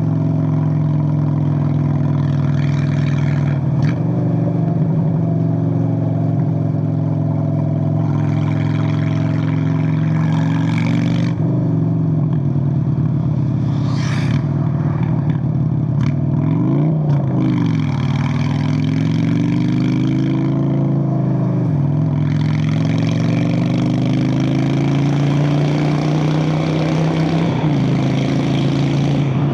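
Straight-piped Honda Shadow VLX 600 V-twin running under way with a loud, steady exhaust note. Its revs drop briefly several times, as at gear changes, and dip and climb again about two-thirds of the way through.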